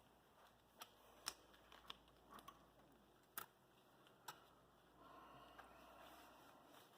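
Near silence broken by about six faint, sharp clicks a second or so apart, with a soft rustling for the last two seconds.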